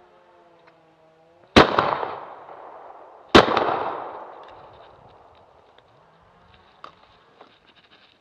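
Shotgun fired twice, about two seconds apart, at a clay target released on the shooter's call. Each shot is a sharp, loud bang trailing off in a long echo. A faint click follows near the end.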